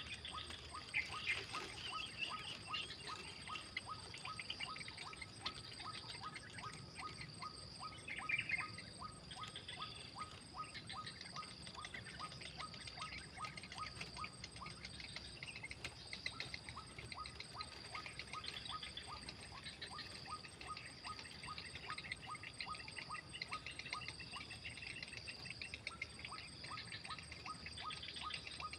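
Steady chorus of insects chirring in the wild, with a high continuous trill and a rapid ticking that fades for a while mid-way and returns near the end. Short bird calls come through about a second in and again around eight seconds in.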